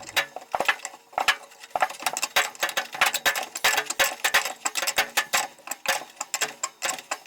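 A quick, uneven run of sharp metallic clicks and ticks as hand tools work the broken drive pulley off the dryer motor's shaft.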